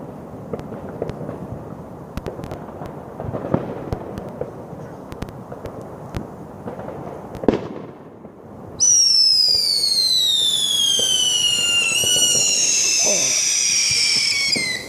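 Fireworks going off: a run of sharp crackles and pops for about nine seconds, then a loud, high whistle that slowly falls in pitch over about six seconds, with a brief hitch partway, and cuts off suddenly near the end.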